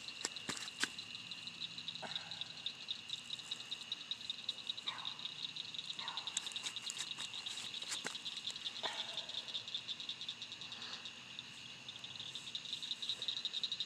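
Outdoor night chorus of high, steady, fast-pulsing trills from calling insects or frogs, with a few faint clicks and rustles of handling.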